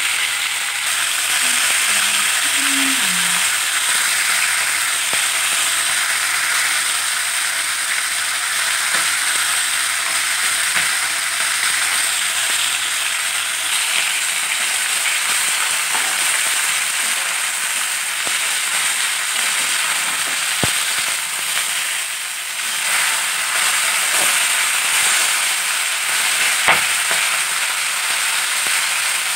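Fish pieces shallow-frying in hot mustard oil in a kadai: a steady sizzle, with two sharp clicks in the second half.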